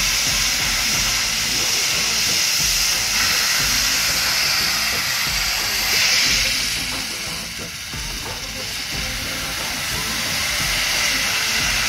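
Steam locomotive blowing steam from its cylinder drain cocks: a steady, loud hiss that swells about six seconds in, then eases for a moment before going on.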